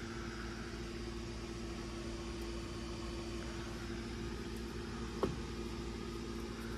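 A steady low mechanical hum, even throughout, with one short knock about five seconds in.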